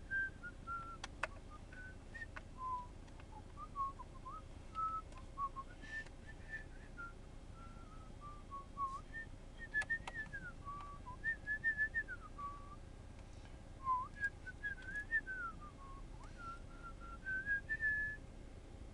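A person whistling a wandering tune, short clear notes and slides, with a few faint clicks among them from a screwdriver driving screws into a laptop's plastic bottom panel.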